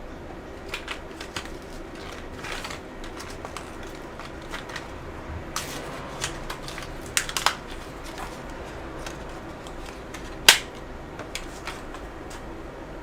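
Small clicks and taps of hard plastic and metal laptop parts being handled during an SSD swap, with one sharp click about ten and a half seconds in.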